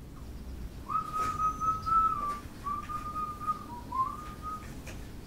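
A person whistling a slow tune: a few long held notes with small steps in pitch, starting about a second in.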